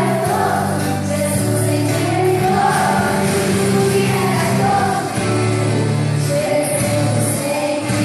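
Loud Christian song with singing over a bass line that changes note about every second, the music the costumed performers dance to.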